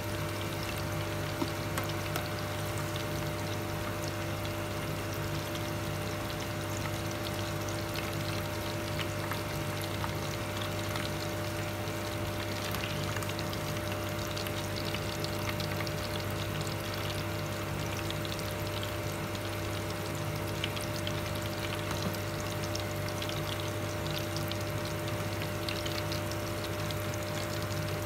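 Sweet potato chunks deep-frying in a saucepan of hot oil: a steady sizzle and bubbling over a low, steady electrical hum. A metal slotted spoon clicks lightly against the pot a few times as the pieces are lifted out.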